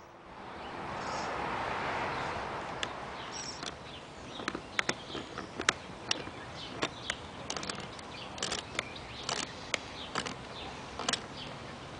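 Pipe wrench working a threaded fitting on galvanized pipe: irregular sharp metallic clicks and ticks, several a second at times, starting about three seconds in, after a soft rushing noise.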